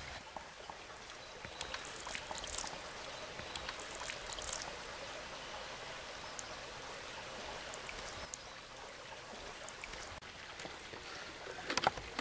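Creek water splashing and trickling as a bottle is held under the surface and filled. Scattered small splashes fall in the first few seconds, and a short run of louder clicks comes near the end.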